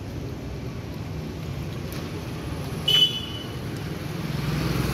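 Steady low hum of a running motor vehicle or nearby road traffic, growing louder near the end, with one short sharp high ping about three seconds in.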